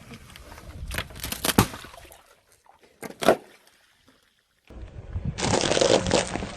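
Objects cracking and crunching as they are crushed under a car tyre. Several sharp cracks come about a second in and a single loud crack past three seconds, then a dense crunch near the end.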